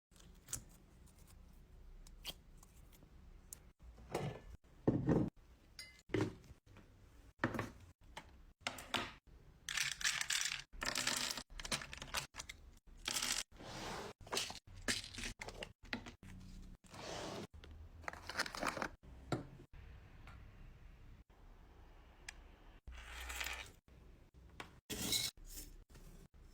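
Slime being squeezed, pressed and stretched, giving irregular noisy crackling bursts. Some bursts are short and some last about a second.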